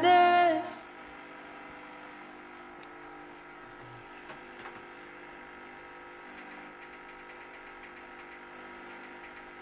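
A female-sung song ends on a held note within the first second. Then only a faint steady hum with a thin high whine remains, with a few soft ticks.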